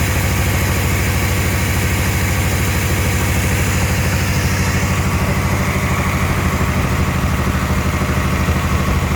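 Car engine idling steadily, with an even low running note that does not change.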